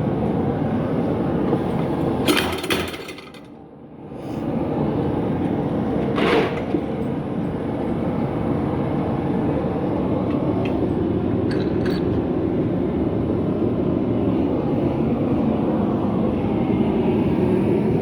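Homemade leaf-spring power hammer running steadily with rapid repeated blows. It stops briefly about three seconds in and then starts up again, with a sharp louder strike just before the stop and another about six seconds in.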